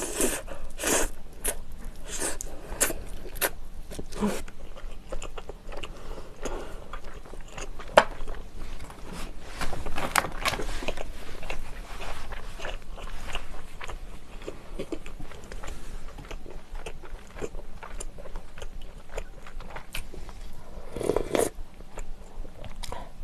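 Close-miked eating sounds: biting and chewing pork meat pulled off the neck bone of a spicy pork bone soup, with quick wet clicks of the mouth, busiest in the first few seconds. Near the end comes a louder, fuller mouth sound.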